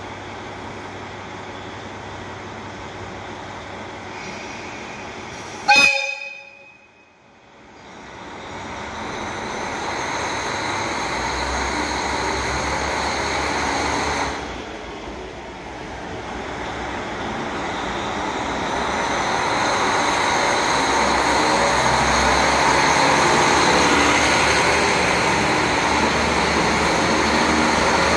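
A JR Hokkaido KiHa 40 diesel railcar sounds one short horn toot about six seconds in. It then pulls out, and its diesel engine and wheels grow steadily louder as it passes close by.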